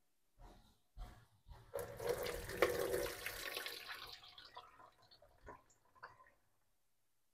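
Chopped red onions frying in hot oil in a pot, being sautéed toward golden: a hiss of sizzling that swells about two seconds in and fades, with scattered crackles.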